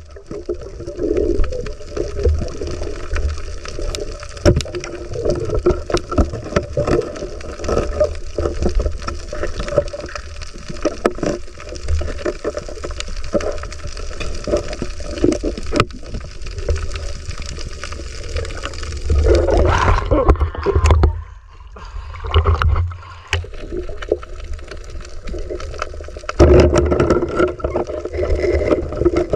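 Underwater sound on a reef, picked up by a camera below the surface: a constant wash of water noise dotted with many sharp clicks and crackles. There are louder rushes of water about twenty seconds in and again near the end.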